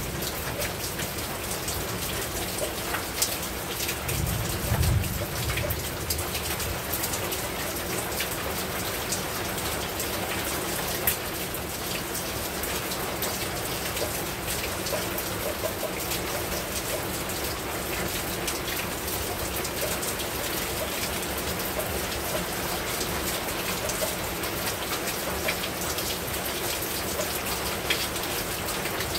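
Heavy rain falling steadily on a house rooftop, a dense hiss full of individual drop impacts. A brief low rumble comes about four seconds in, and a single sharp tick about eleven seconds in.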